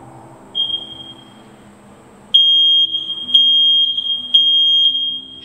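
Combination smoke and carbon monoxide detector sounding its self-test: a brief high beep about half a second in, then loud, piercing high-pitched beeps in the smoke alarm's three-beep pattern, about one a second. The test shows that the alarm is working.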